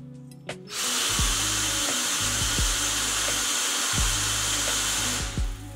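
Cordless drill motor running at speed, turning the bike's flexible-shaft and bevel-gear drive to both wheels. It starts about a second in and stops near the end, with background music and a steady beat underneath.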